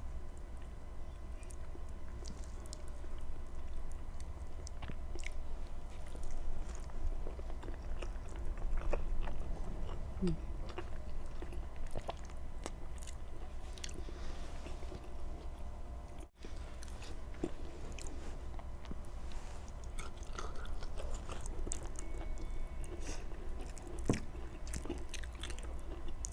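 A person chewing and biting food with the mouth close to the microphone, with scattered small wet clicks over a steady low hum. There is a brief dropout a little past halfway.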